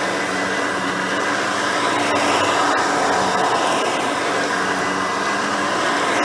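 A custom Hoover Elite 350 upright vacuum cleaner, with a 5-amp motor and seven-blade fan, running steadily while vacuuming, its brush roll turning. A few faint clicks sound near the middle.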